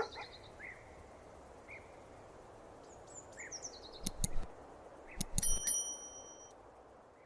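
Outdoor background with small birds chirping in short, falling calls. There are a few sharp clicks about four seconds in, then a clatter and a short metallic ring that fades over about a second.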